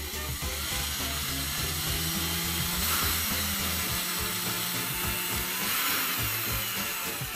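Cordless drill running steadily, its small bit boring into a small block of wood.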